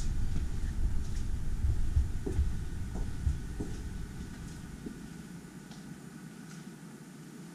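Low rumble and soft knocks from a handheld camera being carried on foot, with a few faint footstep clicks. The rumble fades away about halfway through.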